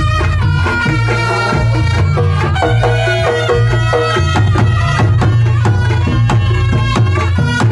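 Reog Ponorogo gamelan playing in a koplo (dangdut-style) rhythm: the large kendang drum beats a fast, driving pattern under a reedy slompret melody, with gong and small kettle gongs keeping time.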